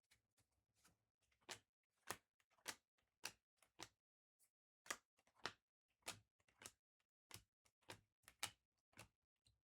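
Topps Chrome trading cards being flipped through one at a time, each card giving a faint, sharp click, a little under two a second, starting about a second and a half in.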